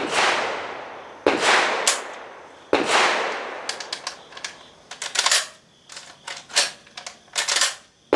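Centurion BP12 12-gauge bullpup shotgun firing three shots about a second and a half apart, each echoing away. Then a run of short metallic clicks and clacks as the action is worked on a gun that is not feeding from its magazine, and another shot right at the end.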